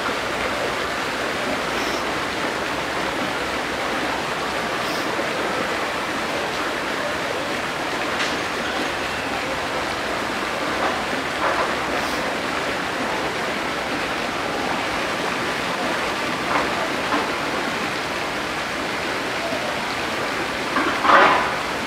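Steady rushing of running water from the enclosure's stream or waterfall, with a brief louder sound near the end.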